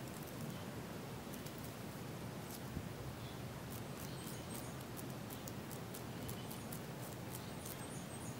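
Hand-peeling of a small vegetable: a run of light, irregular crackling ticks as the skin is pulled off with the fingers. A bird chirps faintly a few times.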